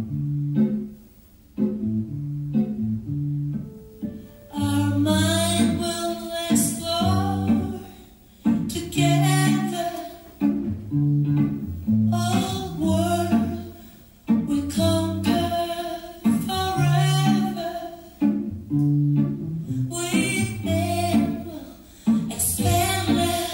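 Pop music with bass guitar and guitar, and a voice singing the melody, played from a cassette recording.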